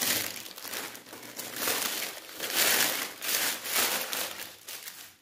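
Shiny gold plastic wrapping on a new motorcycle tyre crinkling and rustling in irregular bursts as hands pull and bunch it.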